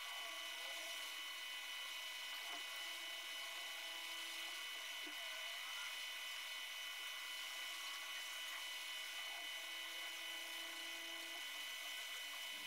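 Faint, steady whir of a hot air rework station's blower with a constant high whine, heating solder on an iPhone XS logic board during reballing.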